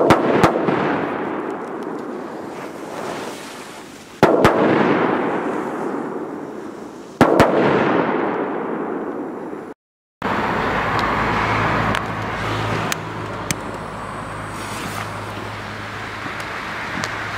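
Firecrackers going off in quick pairs: three sets of sharp bangs, about three to four seconds apart, each trailing off in a long echoing roar. After a sudden cut, a steady low background of road traffic with a few faint ticks.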